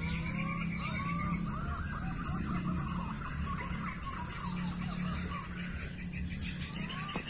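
Forest ambience: insects shrilling in a steady high-pitched drone, with many short whistled bird calls repeating over it and a steady low hum underneath.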